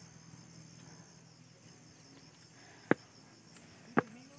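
Insects chirping steadily in the background, with two sharp footsteps on concrete steps about three and four seconds in.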